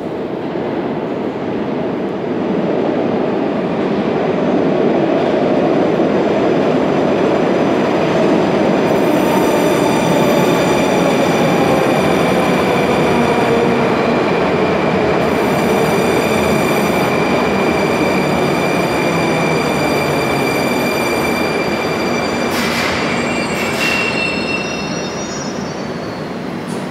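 Moscow Metro train pulling into the platform and slowing to a stop: loud rumble of wheels on rails swelling from about two seconds in, with a falling whine as it slows and a high-pitched squeal from about a third of the way in. Two brief sharp sounds near the end as it comes to a halt.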